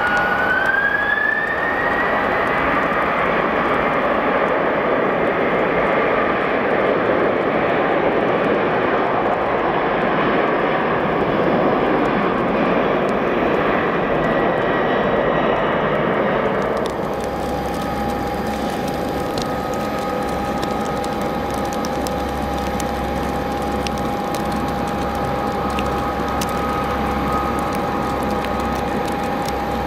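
Twin-engine jet airliner's engines spooling up to take-off thrust, the whine rising over the first two seconds, then running loud and steady through the take-off roll. About 17 seconds in, the sound cuts to a quieter, steady whine from a small rear-engined business jet's engines as it taxis.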